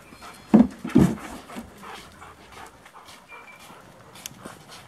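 A dog gives two short, loud barks in quick succession, about half a second apart.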